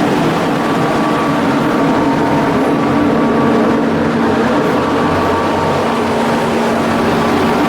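Ship's diesel engine running steadily at constant speed: a loud, even hum.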